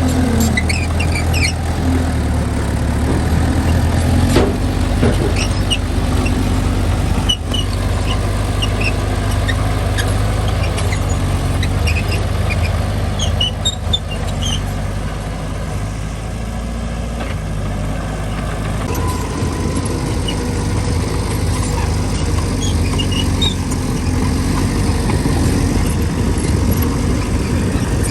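Mitsubishi mini bulldozer's diesel engine running steadily under load, with short high squeaks scattered throughout.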